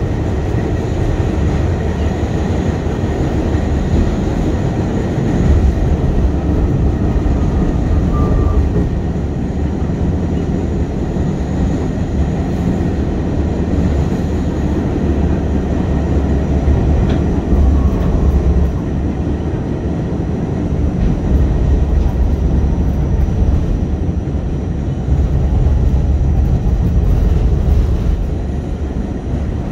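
New York City subway train running along the tracks, heard from inside the car: a loud, steady low rumble of wheels and running gear.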